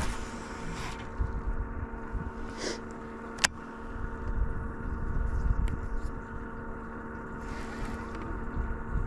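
Steady hum of the jon boat's motor, with wind rumbling on the microphone and a single sharp click about three and a half seconds in.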